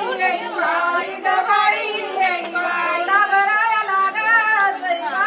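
Women singing a traditional Marathi jatyavarchi ovi, a grinding-stone wedding song, unaccompanied, with long held, wavering notes.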